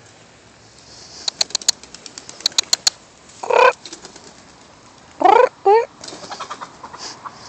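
Chickens flying off a chain-link fence, wings flapping. A quick run of sharp taps about a second in, then a squawk at about three and a half seconds and two more near five seconds.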